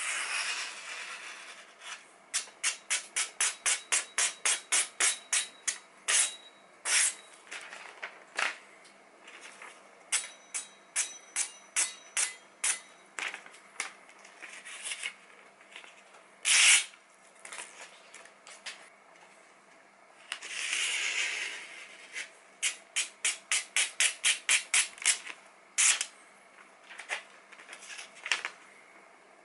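A freshly sharpened kitchen knife slicing through glossy catalogue paper: two quick runs of short crisp cuts, about four a second, with single cuts between them. Softer paper rustling comes as the page is handled, at the start and again about two-thirds of the way in.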